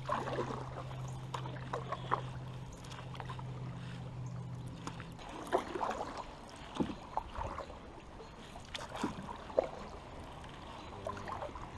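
Canoe paddles dipping and splashing through the river water, with scattered short knocks of the paddles against the canoe. A steady low hum runs under the first five seconds, then stops.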